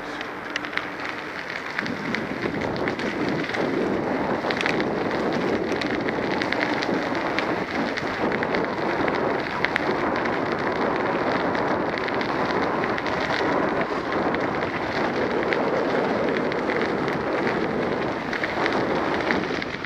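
Ride noise picked up by a bicycle-mounted camera: a steady rushing of tyres on rough asphalt and wind, full of small crackling rattles from the bike and mount. It grows louder about two seconds in.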